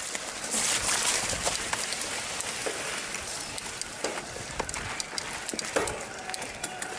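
Mountain bike riding down a wet, rough trail: tyres rushing over wet ground and stones, with the chain and frame rattling in many quick clicks and knocks. The rush is loudest about a second in.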